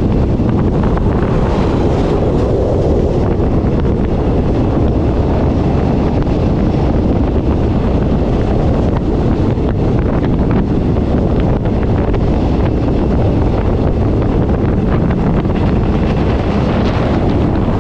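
Wind rushing over the microphone of a camera held out of the window of a moving KTM sleeper train, over the steady rumble of the carriages running on the track.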